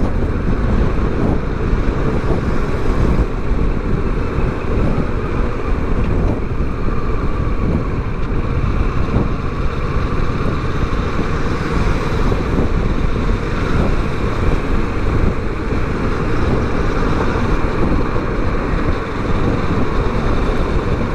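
Kawasaki Versys 650's parallel-twin engine running steadily under way, mixed with wind rushing over the helmet-camera microphone and road noise.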